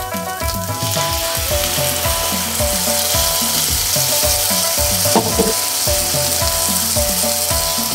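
Sweet-and-sour sauce poured into a hot oiled pan of onion, carrot and bell pepper, sizzling as it hits; the sizzle swells about a second in and keeps going. Background music with a steady beat plays underneath.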